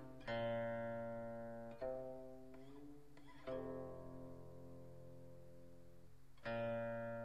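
Slow background music on a plucked string instrument: four notes or chords, each left to ring and fade before the next, with a slight wavering of pitch on the longest one.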